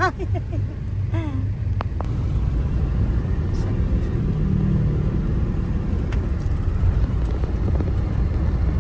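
Steady low rumble of engine and road noise heard inside a moving car's cabin. A brief voice sounds in the first second.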